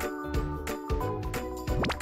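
Background music with a steady beat and bell-like mallet notes. A short rising sweep comes near the end.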